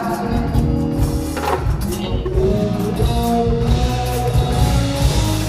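Live band music with a drum kit and cymbals, and a male singer's amplified voice over it.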